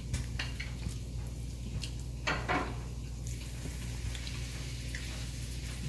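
Steady low hum of room tone with a few faint, brief clicks scattered through it.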